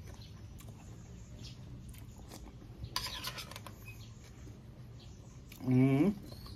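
A man chewing a mouthful of food with lips closed: soft wet clicks and a burst of crackly ticks about three seconds in, then a short, loud hummed 'mmm' that rises in pitch, near the end.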